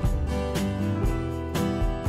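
Background music with guitar and a steady beat, about two beats a second.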